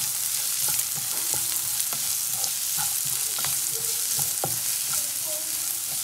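Chopped onions frying in hot oil in a kadai, a steady sizzle, while a wooden spatula stirs them with scattered scrapes and light taps against the pan.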